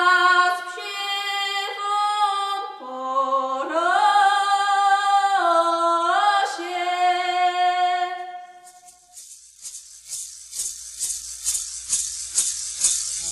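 A solo voice sings long held notes, stepping and sliding up between them, and fades out about nine seconds in. A hand rattle then takes over, shaken in a steady beat of about two shakes a second.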